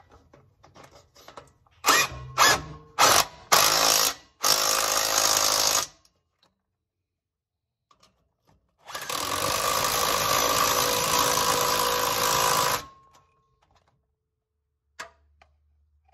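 Handheld power tool running a nut onto a stud with slightly damaged threads: four short bursts, then a run of about a second and a half, and after a pause a steady run of about four seconds.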